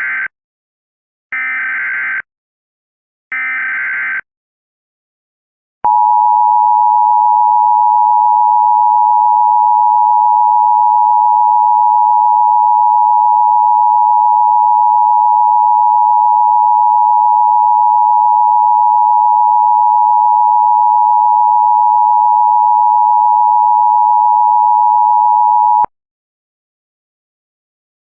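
Emergency Alert System tones. First come three short bursts of warbling digital data tones, the SAME header. About six seconds in, the two-tone EAS attention signal starts, a pair of steady tones near 853 and 960 Hz held for about twenty seconds, then cuts off abruptly. Together they announce an emergency alert message.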